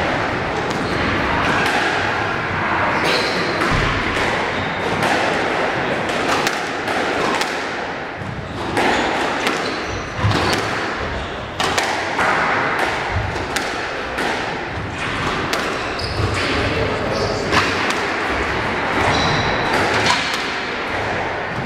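Squash rally: the ball repeatedly smacking off racquets and thudding against the walls and wooden floor, with sneakers squeaking on the court.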